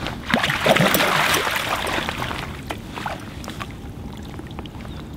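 Water splashing as a musky is handled in a landing net at the side of the boat, loudest in the first couple of seconds and then dying down to light drips and small knocks.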